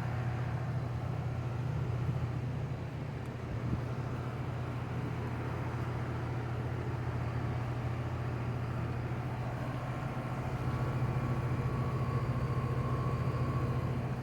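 Outdoor air-conditioning condenser unit running, a steady low hum from the compressor and fan, with a faint higher whine joining about ten seconds in.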